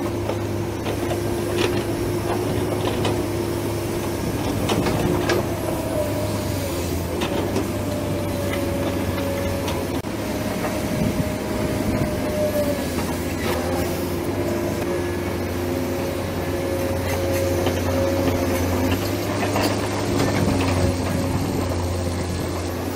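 Radio-controlled hydraulic model excavator working: a steady whine from its electric motors and hydraulic pump over a low hum, with held tones that waver slightly in pitch as the arm moves, and scattered clicks.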